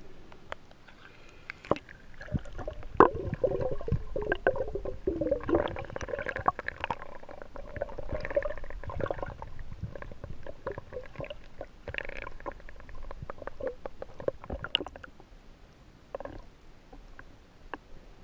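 Muffled underwater sound from a camera held below the surface: gurgling water with many scattered clicks and knocks, fading near the end.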